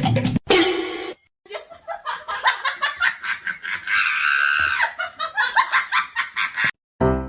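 A person laughing hard in a quick run of short bursts, after a brief stretch of music that stops about half a second in.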